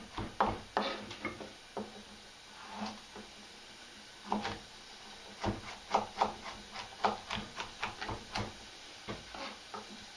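Chef's knife chopping carrots on a plastic cutting board: irregular knocks of the blade on the board, sparse at first and coming faster in a run of strokes past the middle.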